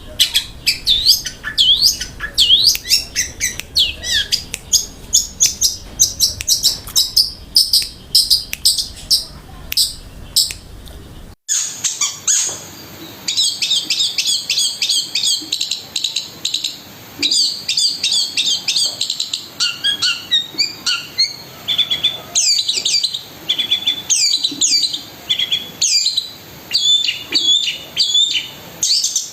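Long-tailed shrike singing without pause: a rapid run of sharp chirps and quick down-slurred notes, a fast rolling song. About 11 seconds in the sound cuts abruptly to another stretch of the same kind of song.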